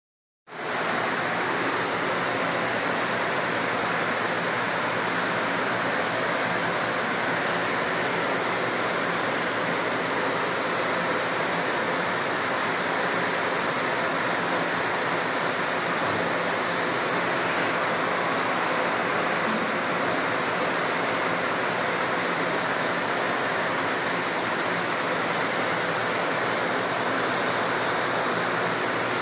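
A steady, even rushing hiss that starts abruptly about half a second in and does not change.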